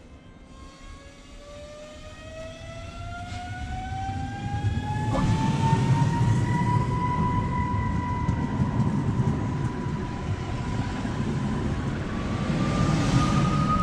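Newag Impuls 36WEa electric multiple unit pulling away from the platform: its traction drive whines, rising steadily in pitch as it accelerates, then levelling off before another rising tone near the end. The rumble of the wheels on the rails grows louder from about five seconds in, with a single click there.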